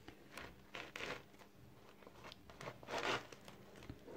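Hands handling a crusty baguette: a series of short crackling rustles as the bread crust is pressed shut over a grated-cheese filling, the longest about three seconds in.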